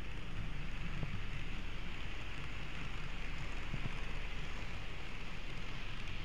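N-scale model train running along the track, heard from a camera riding on it: a steady whir and hiss from the small motor and wheels, with a low rumble and occasional faint clicks.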